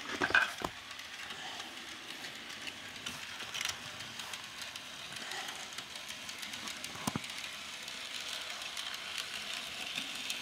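Steady steam hiss from a model steam locomotive's ambient sound effects. A few light plastic clicks come from fingers handling the model car and coupler: a cluster right at the start and single clicks about three and a half and seven seconds in.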